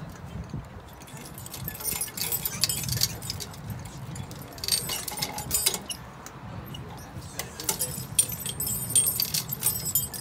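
Light clinking and rustling that comes and goes in clusters every second or two, like small metal objects being handled, over a steady low hum.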